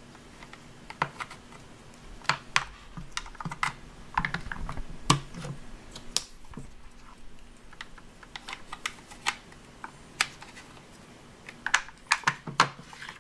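Hard plastic toy ears being pushed and snapped into the sides of a hollow plastic toy head: irregular light clicks and taps of plastic on plastic.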